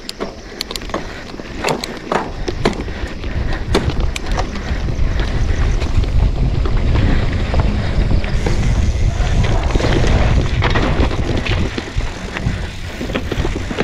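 Mountain bike riding down a dirt trail: wind buffeting the camera microphone and the tyres rumbling over the ground, with many sharp clacks and rattles from the bike over bumps. The rumble grows stronger about halfway through.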